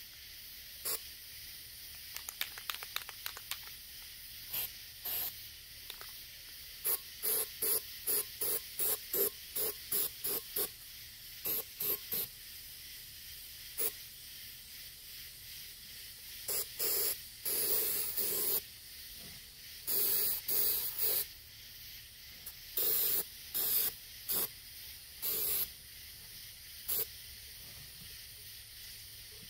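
Aerosol spray-paint can spraying in dozens of short bursts, with a few longer sprays of a second or more after the middle, coating the inside of a turtle shell.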